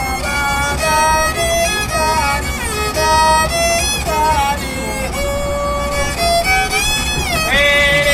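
Background music: a single melody line of held and sliding notes, over a steady low rumble.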